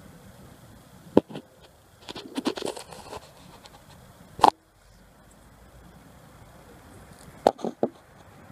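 Scattered clicks and knocks from a spanner working the captive flywheel nut on a Villiers 11C engine, tightening it to pull the flywheel onto the crankshaft: a rattly run of clicks, one loud knock about halfway through and a few quick clicks near the end.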